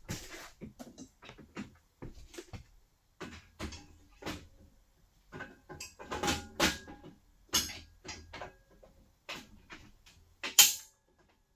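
Steel parts of a drywall panel hoist being handled and fitted together: irregular clanks, knocks and clicks, a few with a short metallic ring, and a sharp clank near the end is the loudest.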